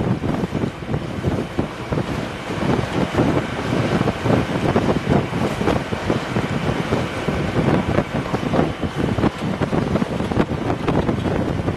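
Gusty wind buffeting the microphone aboard a sailing yacht under way, over the rush of the sea.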